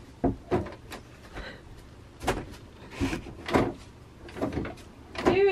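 A door inside an RV being knocked and rattled, about ten sharp, irregular knocks, by someone stuck behind it who can't get it open. A voice cuts in right at the end.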